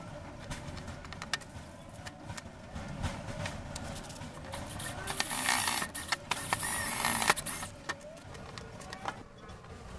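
Small metal lock parts and a screwdriver being handled on a door panel, giving repeated light clicks and taps, with a louder harsh rasping noise for about two seconds past the middle.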